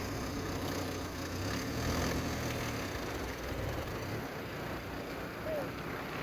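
Steady outdoor background noise at a riverside: a low rumble with an even hiss over it and no distinct events.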